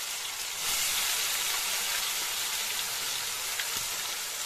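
Green coriander, garlic, ginger and chili paste frying in hot mustard oil with crackled cumin seeds: a steady sizzle that grows a little louder about a second in, with a few faint crackles.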